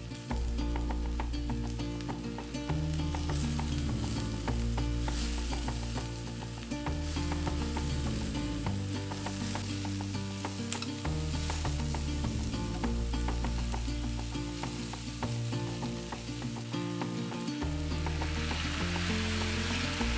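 Food frying and sizzling in a pan while being stirred, with quick clicks and scrapes of the utensil against the pan. The sizzle grows louder near the end, over background music.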